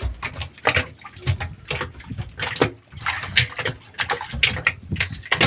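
Water splashing and sloshing in a wooden boat's flooded fish hold as freshly caught fish thrash in it, with quick irregular splashes and knocks several times a second.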